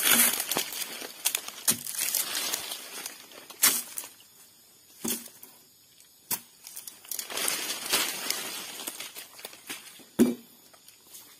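A long iron bar driven into a felled sago palm trunk and levered to split it lengthwise. Irregular dull knocks, the sharpest about ten seconds in, come with the crackling and tearing of the fibrous pith.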